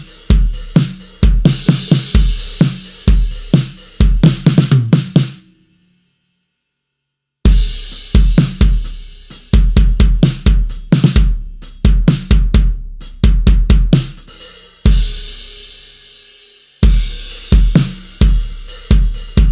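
Sampled acoustic drum kit from the Blasting Room Signature Series Drums Kontakt library playing rock grooves on kick, snare, hi-hats and cymbals. The beat stops dead about five seconds in for two seconds, then comes back; near the end a single hit is left ringing for about two seconds before the groove starts again.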